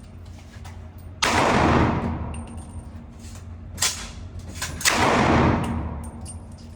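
Two loud gunshots about three and a half seconds apart, each trailing off in a long echo, with a few fainter sharp cracks between them.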